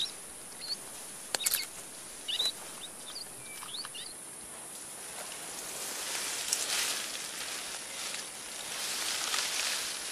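Forest ambience: short, high bird chirps and one sharp snap in the first few seconds, then a hissing rustle that swells and fades.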